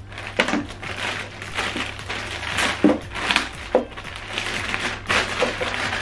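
Clear plastic packaging bag crinkling and rustling as it is handled and opened, with a few small knocks from items set down on the table.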